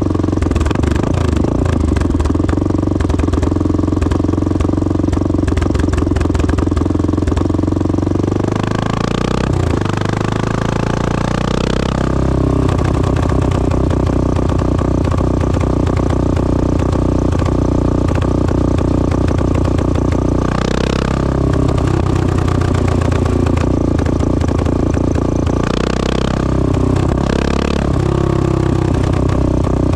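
1986 Honda XL600R's single-cylinder four-stroke engine running through a Devil stainless-steel exhaust. The note holds steady for long stretches, swings in pitch up and down about a third of the way in, and breaks briefly about two-thirds of the way in and again near the end.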